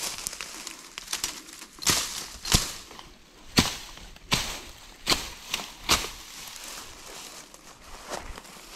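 Dry twigs and branches cracking and rustling in brush: about seven sharp cracks in quick succession starting about two seconds in, with softer rustling before and after.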